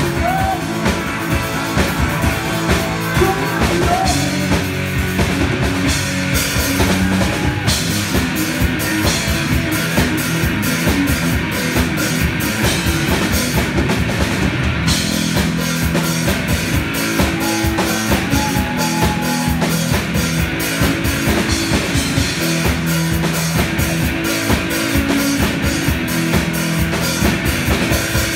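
Live rock music from a guitar-and-drums duo: electric guitar played over a full drum kit with steady, hard-hit drumming.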